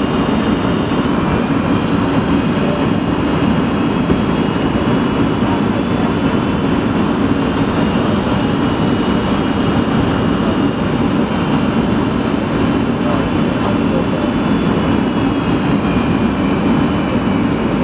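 Steady cabin noise inside a Boeing 757 descending to land: a broad rumble of engines and airflow, with faint high engine tones that drift slightly in pitch.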